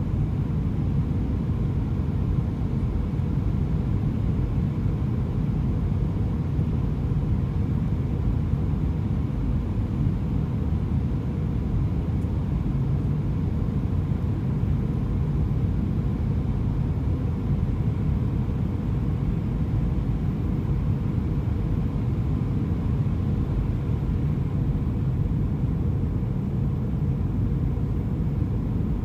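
Steady low cabin rumble inside an Airbus A320 on final approach: engine and airflow noise heard through the fuselage, with a faint steady hum above it.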